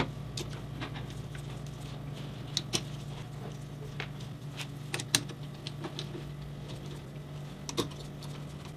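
Scattered small metal clicks and taps as a T-handle driver turns #6 screws into the aluminum tooling plate and the parts are handled, over a steady low hum.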